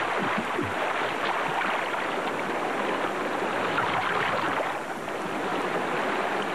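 Fast-flowing river water rushing and churning, with some splashing as a Nile crocodile thrashes at a zebra carcass in the current.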